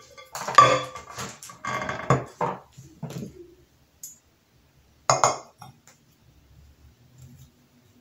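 Glass pieces clattering and clinking against each other and the countertop as a glass plate and a glass candle holder are handled and set together, for about three seconds. One more sharp clink comes a little after five seconds in.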